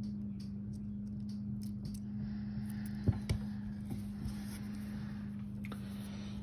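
A steady low hum with a few light clicks and taps from small jewellery parts and tools being handled, two sharper clicks about three seconds in.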